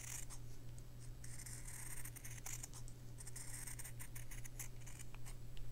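Sewing scissors snipping around a circle through two layers of cotton fabric: a run of faint short snips with fabric rustle.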